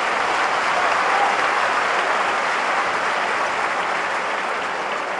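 Stadium football crowd applauding a shot that the goalkeeper has caught: a steady wash of clapping.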